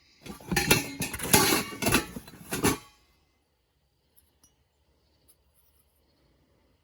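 Hard items clinking and knocking together as they are handled, a quick run of clatter for about two and a half seconds, followed by a few faint ticks.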